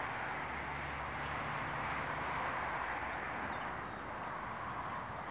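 Steady street background noise, like distant traffic, with a low engine hum in the first two seconds and a few faint high chirps about three seconds in.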